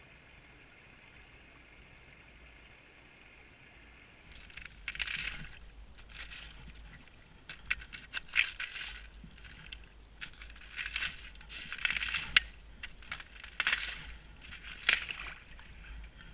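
Creek water sloshing and splashing against a GoPro's waterproof housing as it is pushed through the shallows, heard muffled through the housing. A faint steady hiss first, then from about four seconds in irregular splashes with a few sharp knocks.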